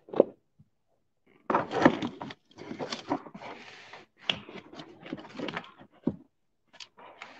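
Close, irregular knocks, bumps and rustling: handling noise near the microphone, starting about one and a half seconds in and going on in uneven bursts.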